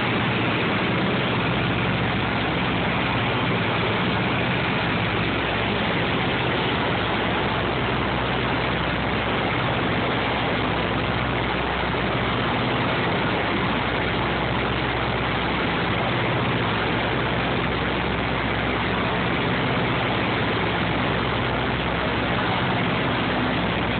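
Steady drone of a DC-3's twin radial piston engines and propellers in cruise, heard inside the cabin, with a constant rush of air noise over the low engine tones.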